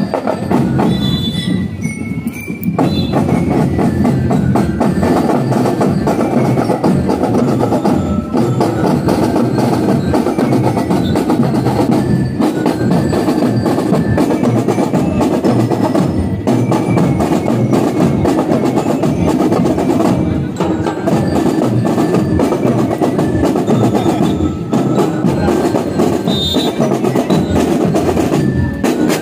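A marching drum and lyre corps playing a tune: bell lyres carry the melody over snare and bass drums keeping a steady march beat. It gets fuller and louder about two and a half seconds in.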